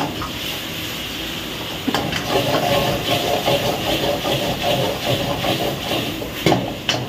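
Meat stir-frying in a wok over a high gas flame: steady sizzling and burner hiss, fuller from about two seconds in, with a metal ladle scraping and knocking against the wok, twice sharply near the end.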